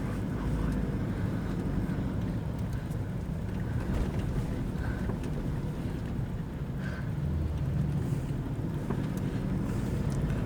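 Steady low rumble of a Toyota Fortuner's 2KD-FTV 2.5-litre four-cylinder turbodiesel running under way, mixed with tyre and road noise, heard from inside the cabin.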